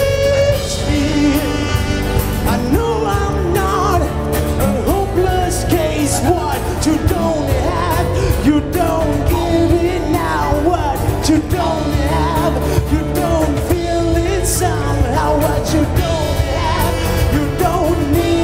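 Live band music: a melodic lead line bending in pitch over steady bass and drums.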